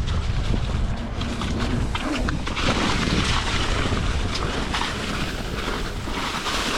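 Wind buffeting the microphone with a low rumble, joined by a louder hiss from about two and a half seconds in and a few scattered clicks.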